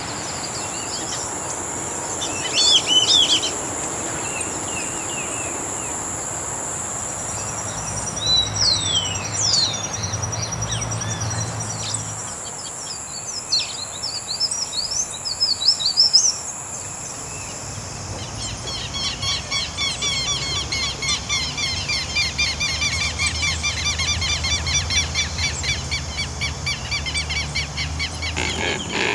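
Wild birds calling and chirping in short bouts of quick swooping notes over a steady high-pitched drone. From about two-thirds of the way through, a fast, pulsing chorus takes over.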